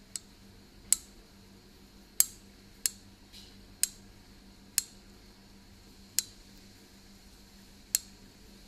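Magnetic wand tapping against the glass window of a Honeywell XNX gas transmitter: about eight sharp clicks at uneven intervals, one for each menu button it activates.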